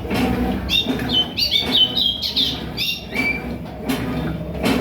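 A small bird chirping a quick run of short high notes for a couple of seconds, over a background of low, indistinct voices.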